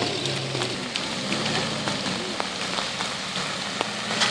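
Steady hiss of rain, with the low engine hum of a WWII jeep and an army truck driving slowly up a wet track, and a few small scattered ticks.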